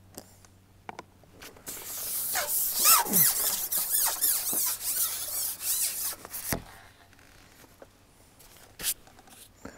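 A carbon fishing pole being shipped back, its sections rubbing and sliding with a run of squeaks and squeals. It ends in a single knock about six and a half seconds in.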